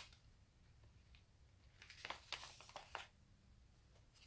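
Mostly near silence, with faint rustling and light taps of paper and card being handled: one sharp tap at the start and a short cluster of soft rustles about halfway through.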